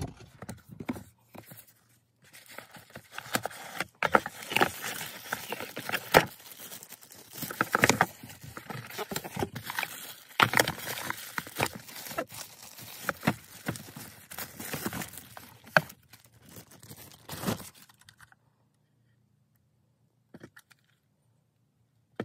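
Clear plastic packaging bags crinkling and rustling in irregular bursts as the contents of a cardboard box are unpacked and handled. The rustling stops about two-thirds of the way through, leaving near quiet with one faint click.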